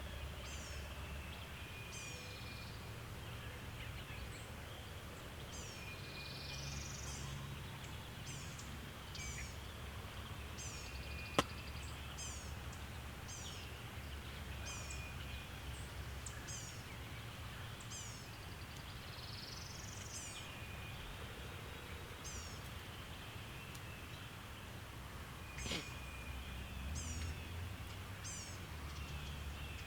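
Outdoor ambience of songbirds repeating short, high, falling chirps, with a few rising whistled notes, over a steady low background rumble. A sharp click sounds about a third of the way in, and a softer one later.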